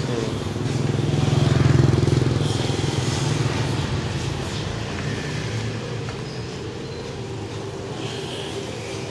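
Small motorcycle engine running, rising to its loudest about two seconds in, then easing back to a steadier, quieter run.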